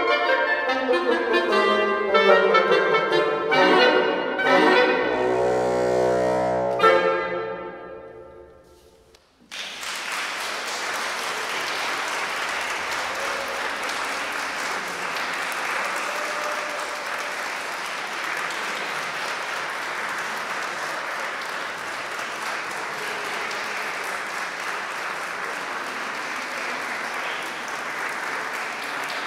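Oboe, clarinet and bassoon trio playing the fast closing bars of a piece, ending on a held chord that dies away. About nine seconds in, the audience breaks into steady applause.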